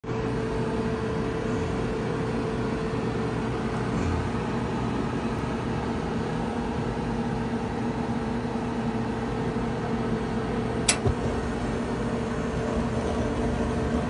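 American gas clothes dryer running steadily with a constant hum while its burner's glow-bar igniter heats up. About eleven seconds in there is a single sharp click, the gas valve solenoids opening, after which the burner lights.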